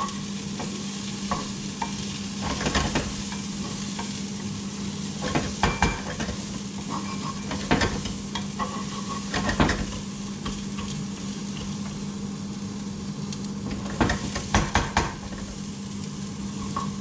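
Peanuts being roasted in a hot pan and stirred, with a steady sizzle and a steady low hum under it. Bursts of scraping and clicking from the stirring come every few seconds.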